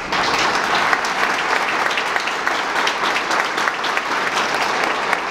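An audience applauding: many people clapping at once, at a steady level.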